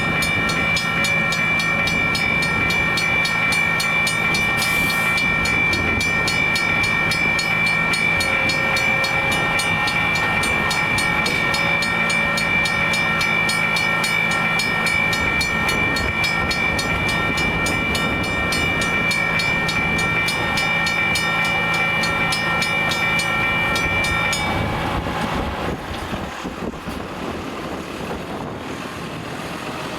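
WRRS (Western Railroad Supply) railroad crossing bell ringing in a steady, rapid repeating pattern, the warning that the crossing is active. It stops about five seconds before the end.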